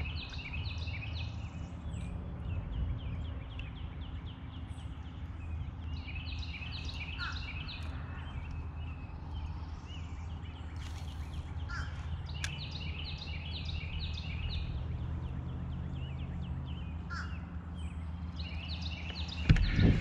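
A songbird singing short phrases of quick notes, repeated about every five to six seconds, over a steady low rumble. A single sharp knock sounds near the end.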